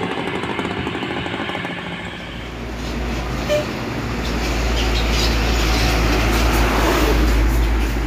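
A coach bus engine running as the bus pulls away; then a deep engine rumble builds as a large truck approaches and passes close by, loudest near the end.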